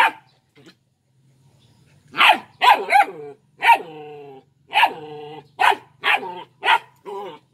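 Three-month-old Belgian Malinois puppy barking at a coconut shell in play, a run of about nine short, high yappy barks starting about two seconds in, some trailing off into a drawn-out whine-like tone.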